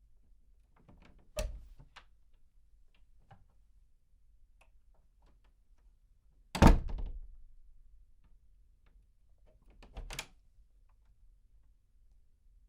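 Glass door being opened and closed, heard from medium distance, with small handle and latch clicks. It knocks shut once about a second and a half in, shuts loudest about six and a half seconds in with a short ringing decay, and knocks once more about ten seconds in.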